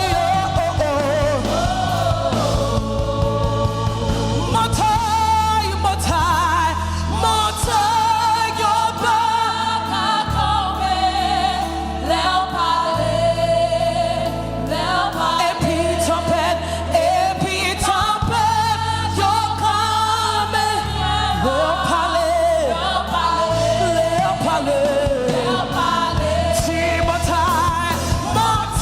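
Worship music: voices singing a slow gospel melody with vibrato over a held bass line that changes note every two to three seconds.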